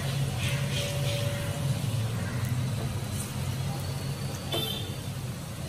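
Onion pakoras sizzling as they deep-fry in hot oil in a steel kadai, over a steady low rumble of road traffic from a main road. A short high beep sounds about four and a half seconds in.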